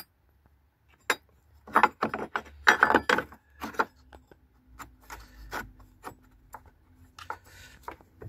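Battery hold-down bracket being shimmied by hand into its slot beside the battery: a run of knocks, clicks and scrapes, busiest between about two and four seconds in, then lighter clicks.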